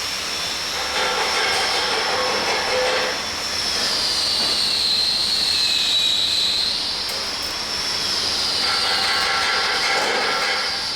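A high-pitched machine whine over a hiss. Its pitch sags about a third of the way in, then climbs back near the middle.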